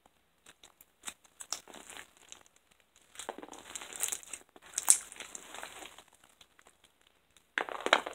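Slime full of small colourful beads being pressed, squeezed and stretched by hand, making crackly, crinkling clicks; scattered at first, densest about three to six seconds in with a sharp loud pop near five seconds, and again near the end.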